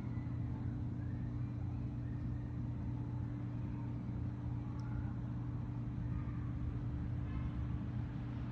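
Steady low drone of city traffic noise, with faint short higher-pitched sounds over it.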